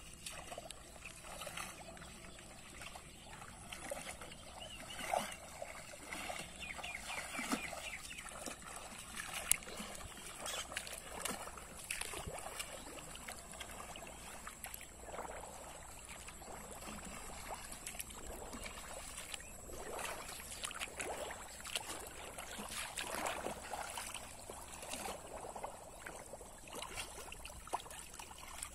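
Shallow water splashing and sloshing irregularly as a person wades and works his hands through it.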